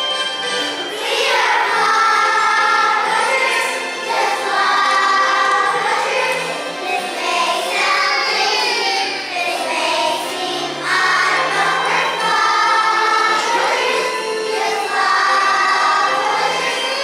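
A choir of young children singing a song together, over low held accompanying notes.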